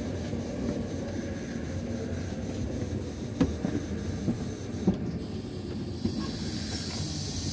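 Steady rumble of a double-deck regional train coach rolling slowly into a station, with a couple of short clunks from the running gear about three and a half and five seconds in. A hiss rises near the end as the train comes to a stop.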